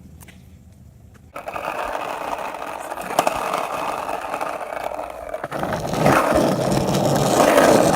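Skateboard wheels rolling over pavement, a steady rumble that starts about a second in and grows louder near the end.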